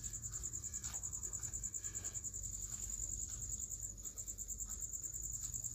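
A cricket chirping in a steady, fast, high-pitched pulsing trill over a low hum, with a few faint taps of a knife cutting a peeled bottle gourd on a steel plate.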